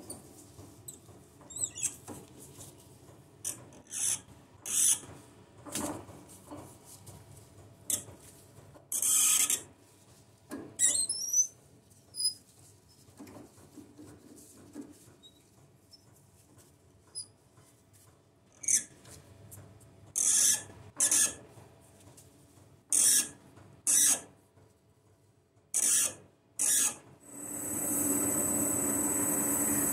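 M12 hand tap being turned with a tap wrench into a brass workpiece, giving irregular short squeaks and scrapes as it cuts the thread. About two seconds before the end a metal lathe starts up and runs steadily with a high whine.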